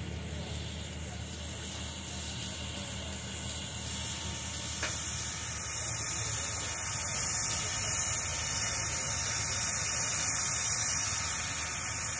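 Steam hissing from Reading & Northern #425, a Baldwin Pacific steam locomotive. It grows louder about four seconds in and swells a few times.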